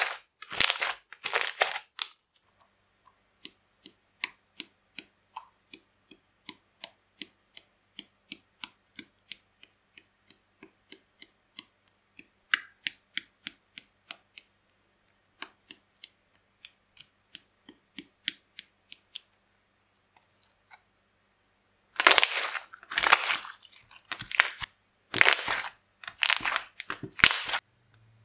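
Slime being handled: a few crackly squishes at first, then a long run of small sticky clicks, two to three a second, as the end of a tube is pressed again and again into clear slime. After a short pause come several loud crackly squishes and pops near the end.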